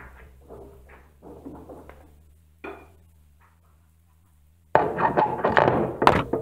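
Metal clanking and rattling at a lathe's tool post and carriage: a few light knocks, then a loud run of clatter over the last second and a half, over a steady low hum.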